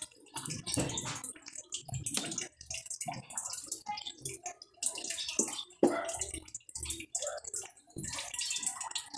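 Hands turning and rubbing a clay ring spool wound with nylon fishing line: irregular scrapes, rustles and light clicks.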